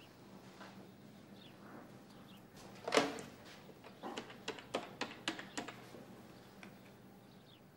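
Corded desk telephone handled: a sharp clack about three seconds in as the handset comes off its cradle, then a quick run of clicks as the number is keyed in.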